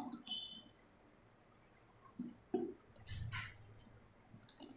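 Thin appam batter being poured from a ladle into a steel bowl, faint, with a few soft knocks and a clink between about two and three and a half seconds in.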